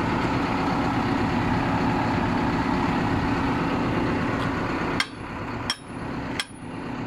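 Heavy machine's diesel engine idling steadily. About five seconds in come sharp ringing metal-on-metal hammer blows, three or four of them about 0.7 s apart, as the pin on the auger drive coupling is knocked out to free the auger bit.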